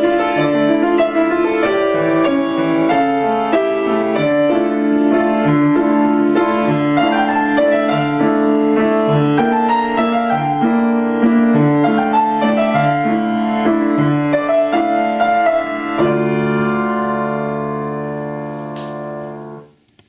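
Grand piano playing a flowing passage over a low note repeated at a regular pace, then a final chord struck about four seconds before the end and left to ring, fading away until it is cut off.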